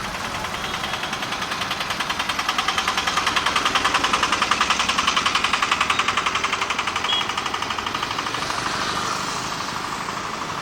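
A small engine passing close by in road traffic: a fast, even rattle that grows louder to a peak around the middle, then fades as it moves away.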